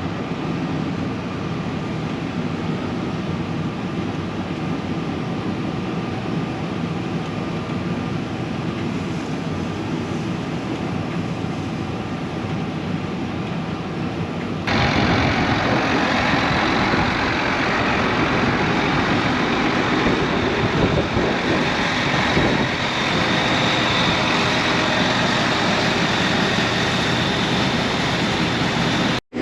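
Combine harvester running steadily while harvesting soybeans. About halfway through the sound jumps abruptly to a louder, brighter running noise, and it cuts out for an instant at the very end.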